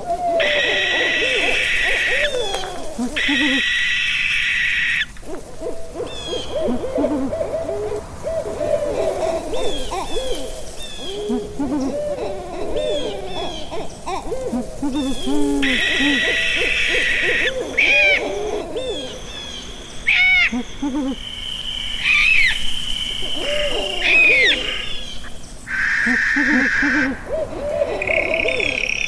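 Owls calling: many short hooting calls overlapping one another, broken several times by harsh screeches about a second and a half long.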